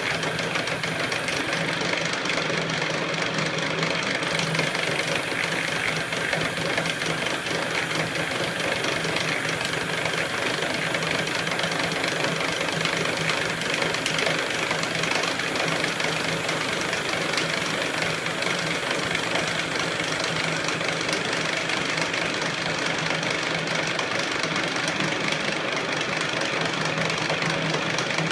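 E1N metal lathe running steadily: a continuous machine hum with a dense rattling texture.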